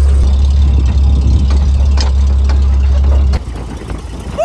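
1927 American LaFrance pumper's engine running with a deep, steady rumble; the rumble cuts off abruptly about three and a half seconds in.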